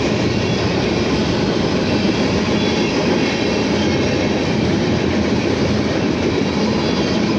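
CSX mixed manifest freight train passing close by: a steady, loud rumble and rattle of the train rolling on the rails.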